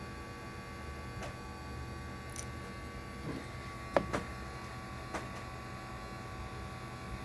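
Steady electrical hum with a handful of small, sharp clicks and taps scattered through it, the loudest about four seconds in.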